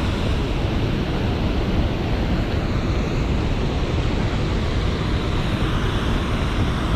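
Water rushing steadily through a dam spillway, an even noise with no breaks, with wind buffeting the microphone.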